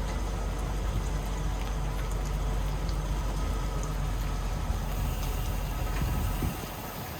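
Diesel engine of a Peterbilt 389 truck running, a steady low rumble heard from inside the cab, which drops away sharply about six and a half seconds in.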